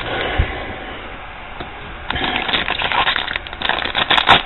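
Foil trading-card pack wrapper crinkling as it is handled and crumpled, with a soft knock about half a second in and denser crinkling in the second half.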